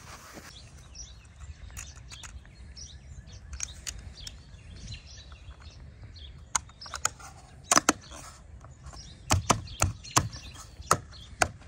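Black rubber roof-channel trim strip on a 2017 Chrysler Pacifica being pressed and snapped back into its roof channel by hand. A quiet stretch, then from about halfway a run of sharp clicks and knocks, several in quick pairs, as the strip seats in the channel.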